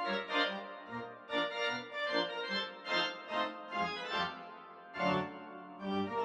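Keyboard music playing a melody of short notes over a changing accompaniment, with a louder chord struck about five seconds in.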